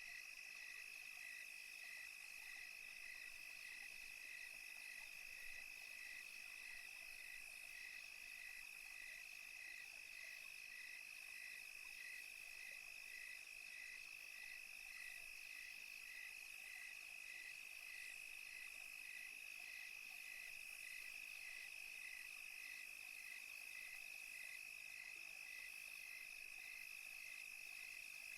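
Faint nighttime cricket chorus: a steady high trill, with a second call just below it chirping in an even, slow pulse about one and a half times a second.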